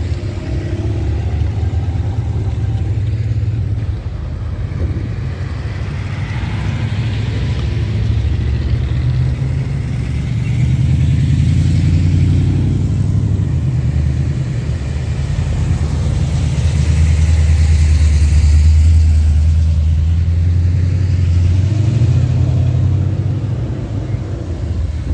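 Classic cars driving slowly past one after another, their engines running with a low rumble that swells and eases as each car goes by. It is loudest about two-thirds of the way through.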